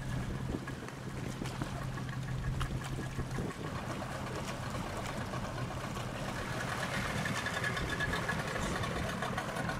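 Small fishing boat's motor running steadily, with water noise and scattered clicks around the hull.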